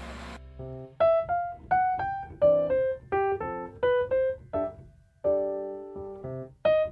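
Background piano music: a light melody of short struck notes, many in quick pairs, with a held chord a little past halfway.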